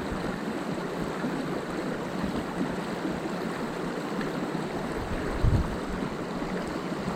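Mountain stream water rushing, a steady even noise, with a brief low thump about five and a half seconds in.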